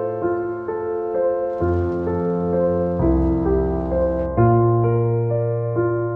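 Background piano music: soft notes struck about twice a second over low held bass tones that change every second or so.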